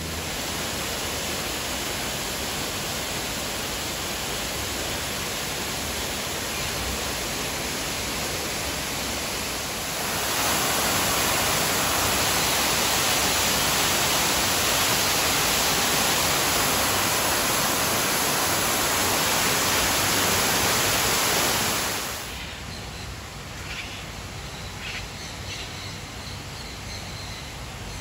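Waterfall cascading down a rock face: a steady rush of water that grows louder about a third of the way in and cuts off suddenly later on, leaving quieter outdoor ambience with faint bird calls.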